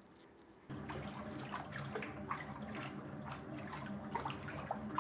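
Water churning and splashing as a dog walks on an underwater treadmill in a hydrotherapy tank, over a steady low hum. It starts suddenly under a second in.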